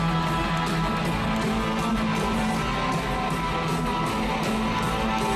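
Live rock band playing an instrumental passage, with strummed electric guitar to the fore over bass and drums, in a large arena and heard from among the audience.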